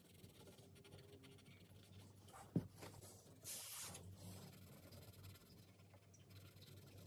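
Faint scratching of a coloured pencil on a paper colour chart, with one sharp tap about two and a half seconds in and a brief papery rustle about a second later as the sheet slides on the table.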